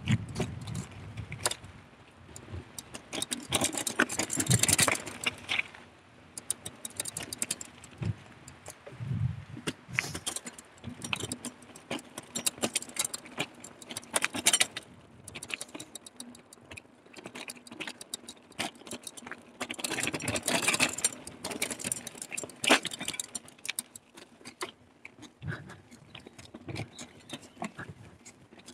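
Carrera Hellcat mountain bike rattling and clattering over a rough trail: many sharp clicks and jangles from the chain and frame with tyre noise, coming in louder waves where the ground gets rougher.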